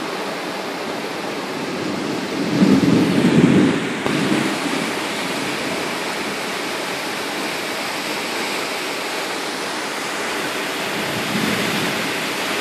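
Floodwater rushing down a street in a steady, even rush, with a louder low rumble lasting about a second and a half, starting about two and a half seconds in.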